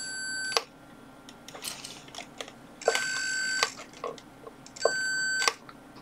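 Electronic alarm tone from a Maxitronix Sensor Robot 20 light-alarm circuit sounding in three short, steady beeps, with faint clicks between them. The alarm switches on and off instead of staying latched on as the project intends, and the builder suspects a wiring fault.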